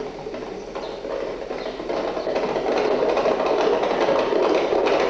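Hooves of several horses galloping on a dirt track, a fast, dense clatter that grows steadily louder as the riders approach.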